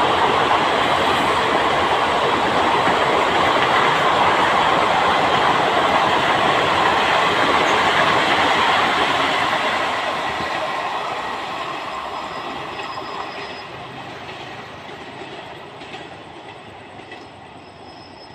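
Passenger coaches of an express train running past at speed, their wheels rattling and clattering over the track. From about nine seconds in the sound fades steadily as the end of the train draws away.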